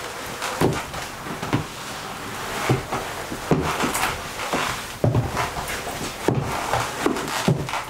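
Black leather jacket rustling and creaking as it is squeezed and rubbed in the hands, together with the swish of a satin dress. About eight short knocks come at uneven intervals, high heels tapping on a wooden floor as she shifts and turns.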